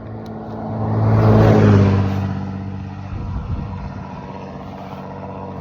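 A motor vehicle passing by on the road, its engine and tyre noise swelling to a peak about a second and a half in and then fading away.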